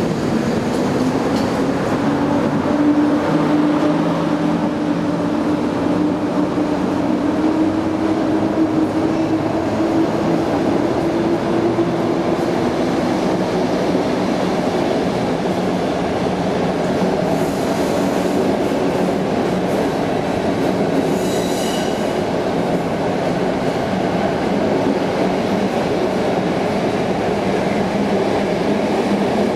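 PKP class EP08 electric locomotive pulling a passenger train away from an underground platform: a motor whine rises in pitch over the first dozen seconds as it gathers speed, then the coaches roll past with a steady rumble and light clatter. A brief high wheel squeal comes a little past two-thirds of the way through.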